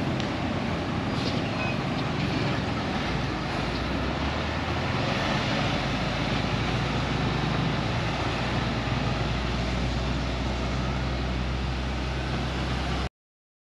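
A heavy fire truck's diesel engine runs low and steady as the truck moves slowly off along the road, among general street traffic. Its low note grows stronger about four seconds in. The sound cuts off suddenly near the end.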